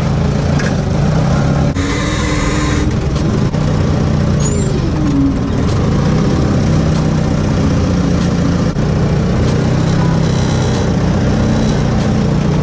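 Forklift engine running steadily as the forklift drives and turns, with a short hiss about two seconds in.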